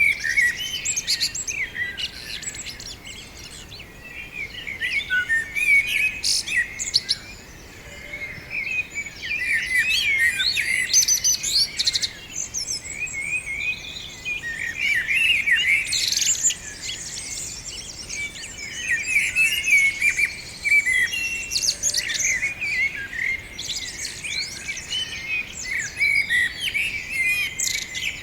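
Many small songbirds chirping and singing at once: a dense, overlapping chatter of short, high calls and trills, thinning briefly a couple of times before picking up again.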